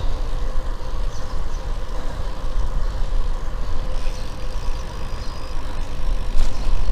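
Wind rushing over an action camera's microphone while riding a Romet Orkan bicycle, mixed with tyre and road noise, steady throughout.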